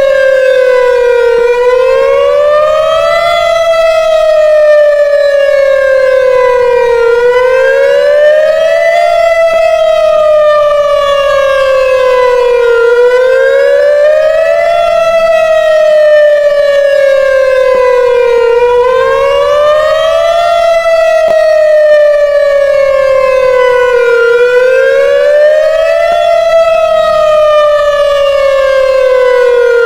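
Whelen WPS-2910 electronic outdoor warning siren sounding its wail tone. A loud, buzzy tone slowly rises over about two seconds, then falls over about three and a half, repeating about five times.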